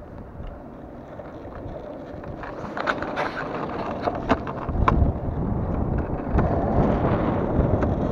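Wind buffeting the microphone over the rolling rumble of a sail-powered longboard on asphalt, growing louder from about halfway through. A few sharp clicks come just before that.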